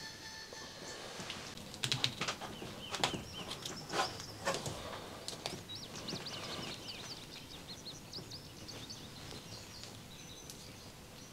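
Clicks and rustles of electrical wires being twisted together and wire nuts screwed on by hand, loudest a couple of seconds in. Birds chirp quickly in the background through the middle.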